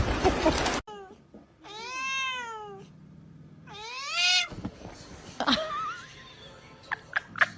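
A loud noisy stretch cuts off under a second in, then a cat gives two long meows, each rising and then falling in pitch. A few soft clicks and a short chirp-like call follow.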